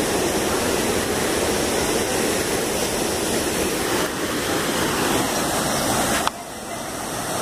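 Steady rushing of a waterfall plunging into a pool. The sound drops abruptly about six seconds in, then slowly swells back.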